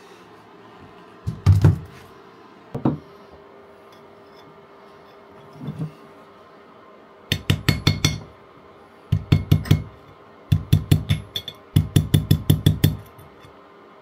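Metal being worked by hand: a couple of single knocks, then four quick runs of sharp metallic strikes, about eight a second, in the second half, over a faint steady hum.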